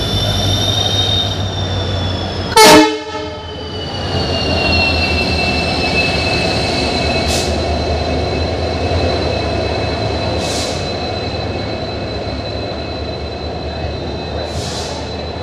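WDP4D diesel locomotive hauling a passenger train in along the platform. It sounds one short, very loud horn blast about two and a half seconds in. Then the low engine rumble and rolling noise continue under a steady high wheel squeal that slides slightly down in pitch as the locomotive and coaches pass.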